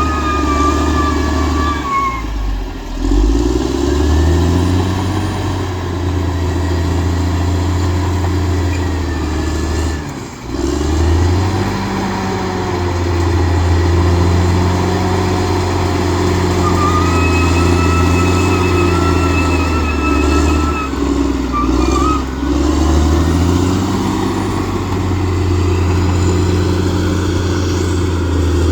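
Bulldozer's diesel engine running hard as it pushes and levels soil. Its pitch dips under load and picks back up about two seconds in, again near ten seconds and near twenty-two seconds. A thin high whine comes and goes.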